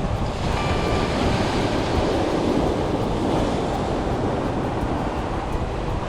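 Sea surf washing ashore with wind rumbling on the microphone; a wave surges louder about two seconds in, then eases off.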